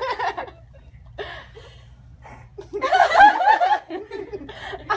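A woman laughing emotionally with her hands over her mouth, in a few short bursts, the longest and loudest about three seconds in.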